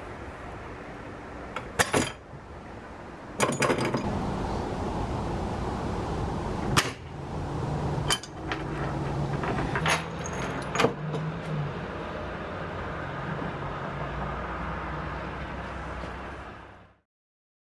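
Small steel leghold trap, a mink or muskrat trap, sprung on a wooden stick: several sharp metal clicks and clanks from the jaws and chain, over a steady background noise.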